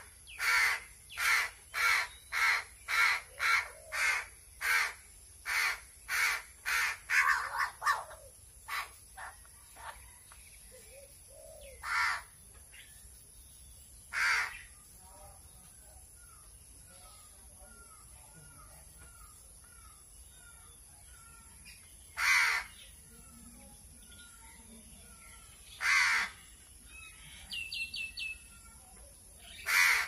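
A hungry crow cawing for food, loud and harsh. The caws come fast, about two a second, for the first eight seconds, then only one now and then, every few seconds. A small bird chirps faintly in the background.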